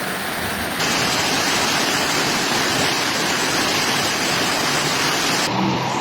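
Heavy storm rain and rushing floodwater, a loud steady hiss. Its tone changes abruptly about a second in and again near the end, where the footage cuts between recordings.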